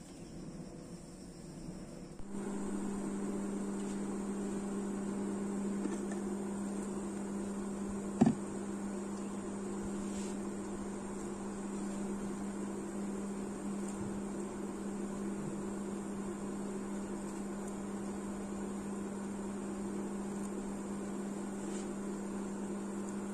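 A pot of water at a rolling boil on an electric cooktop, with the cooktop's steady electrical hum, starting about two seconds in after a faint quiet background. A single sharp knock about eight seconds in.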